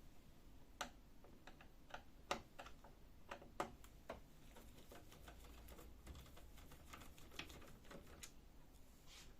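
Faint, irregular small clicks of a screwdriver turning a screw out of a printer's plastic side cover, about a dozen scattered ticks with a few slightly louder ones.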